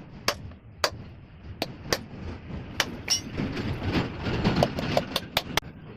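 Sharp clicks and knocks of tools on metal during engine repair work, irregular and about a dozen in all, over a low rumbling noise that swells in the middle.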